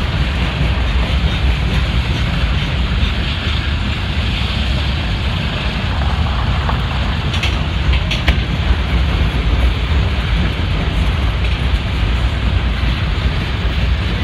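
Freight cars of a long mixed freight train rolling past: a steady rumble of steel wheels on rail, with a few sharp clicks a little past halfway.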